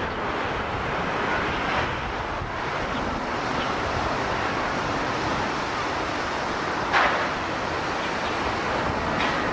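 Airbus A320 jet airliner's engines as a steady rushing noise, with a brief louder hiss about seven seconds in.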